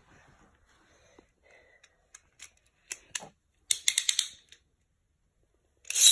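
Sharp plastic clicks, then a quick rattling run of clicks, as a Beyblade spinning top is fitted onto its plastic launcher. Right at the end a loud zip begins as the launcher's ripcord is pulled to send the top into the plastic stadium.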